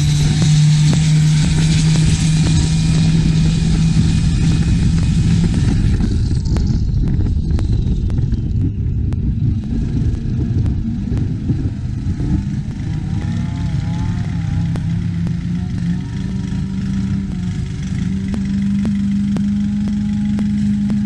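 Turbocharged diesel engine of a Thai long-tail racing boat running hard at speed, with rushing water and wind over it. About six seconds in the hissing rush fades and the engine note dips, then it climbs again near the end.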